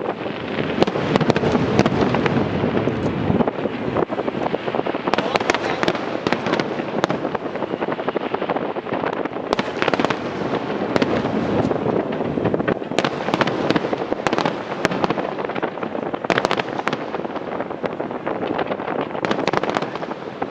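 Aerial fireworks display: a dense, continuous crackle with many sharp bangs.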